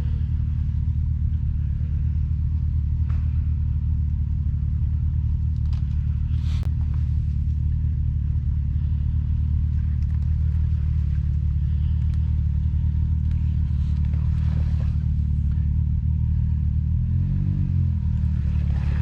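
Side-by-side UTV engine idling steadily, with one short rev that rises and falls about seventeen seconds in.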